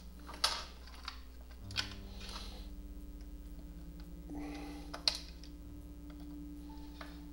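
Sharp plastic clicks and knocks, three of them with a short rustle before the last, as the plastic housing and parts of a Coleco Adam data drive are handled and fitted together by hand.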